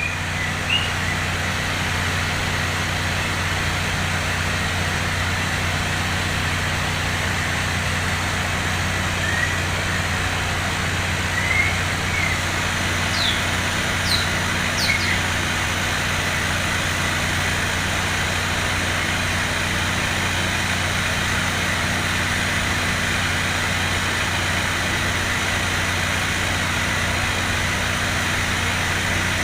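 Steady mechanical hum under a loud, even rushing hiss, with a handful of brief, faint songbird chirps about a third of the way in.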